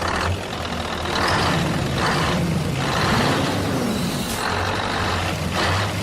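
Truck engine running steadily, a low hum with a hiss that swells about once a second. The pitch rises and falls once about halfway through.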